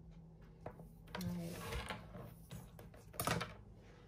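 Handling noise from a portable monitor in its folding stand case being shifted about on a wooden desk: light taps and rustling, with a sharper knock a little over three seconds in.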